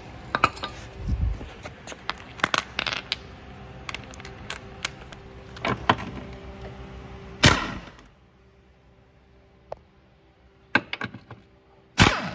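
Metal clinks and knocks from an impact wrench and socket being worked onto the upper bolts of a rear shock mount, with a short burst of the impact wrench about seven and a half seconds in and another near the end as it zips the bolts off.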